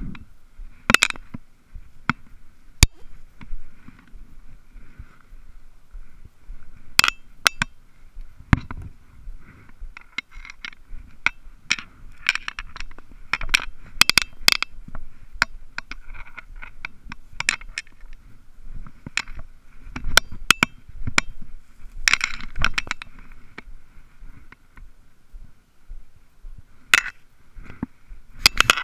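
Dozens of irregular sharp clicks, knocks and scrapes from a body-worn action camera's housing being bumped and rubbed by hands, sleeves and dry brush, over a faint steady high hiss.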